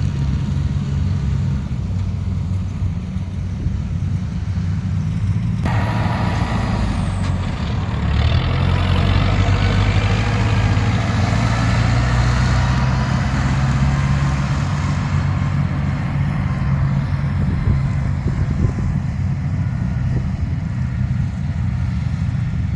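Diesel engine of a rice combine harvester running steadily. About six seconds in, a louder clattering machine noise joins it, strongest a few seconds later and slowly easing.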